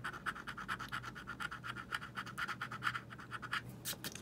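A coin scratching the coating off a scratch-off lottery ticket in quick, even strokes, about eight a second, breaking off near the end with a last couple of strokes.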